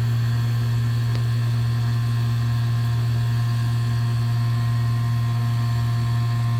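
Electric HVAC vacuum pump running steadily with a low, even hum. It is evacuating the refrigerant system, pulling it down towards 500 microns before recharge.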